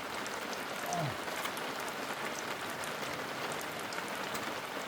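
Heavy rain falling steadily, with many small drop ticks scattered through it. A brief low vocal sound, falling in pitch, comes about a second in.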